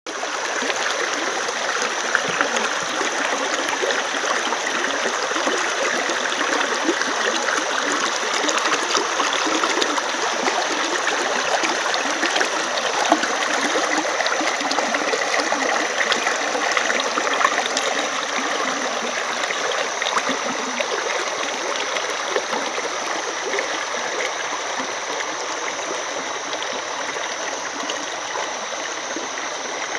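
Stream water flowing and babbling over rocks in a steady, continuous rush, with a thin high-pitched hiss running steadily above it.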